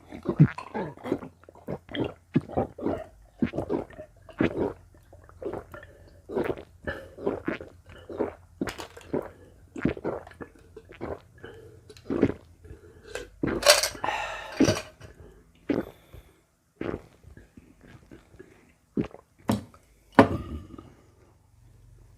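Close-miked drinking mouth sounds: many short gulps, swallows and sips in an irregular run, with a longer, noisier sound lasting about a second around fourteen seconds in.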